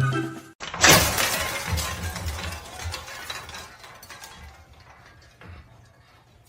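Something shattering with a sudden loud crash about a second in, then scattered pieces clattering and tinkling as they settle, fading over several seconds.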